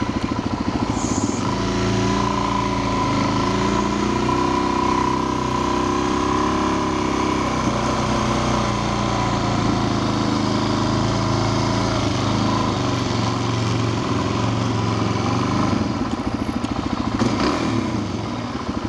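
Motorcycle engine running under way, its pitch rising and then falling back as the bike speeds up and slows.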